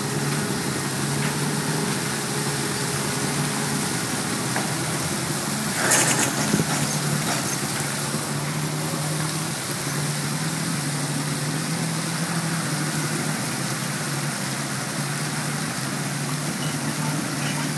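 Engine of a marina boat lift running steadily while it raises a boat out of the water, with a brief knock about six seconds in.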